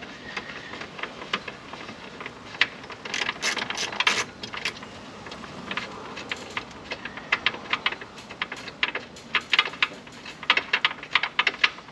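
Hand ratchet clicking in quick runs, with short pauses, as long T40 Torx screws are backed out.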